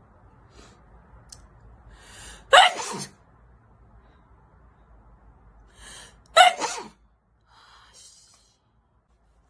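A woman sneezing twice, about four seconds apart, each sneeze preceded by a quick in-breath, with a short, softer breath after the second.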